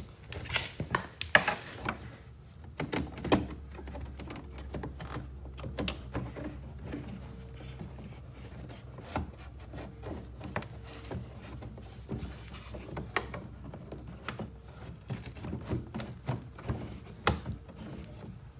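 An aftermarket grille insert being worked by hand into a car's side air intake: irregular knocks, taps and scrapes of the grille against the body panel, over a low steady hum. The loudest knocks come about a second and a half in and near the end.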